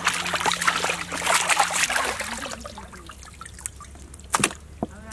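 Water splashing and dribbling as raw mutton legs are dunked and rinsed in a large pot of water; the splashing eases off after about two and a half seconds. Two sharp knocks come near the end.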